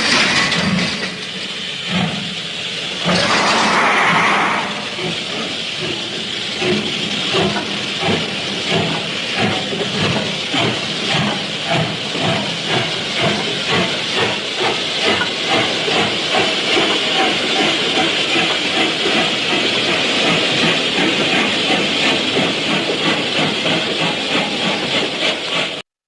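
Steam locomotive starting away: a few slow exhaust chuffs, a loud burst of steam hiss about three seconds in, then a run of chuffs that quicken steadily as the engine gathers speed.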